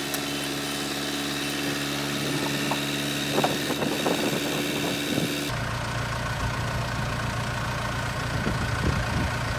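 JCB backhoe's diesel engine idling steadily. About five seconds in, the sound changes abruptly to a deeper, rougher rumble.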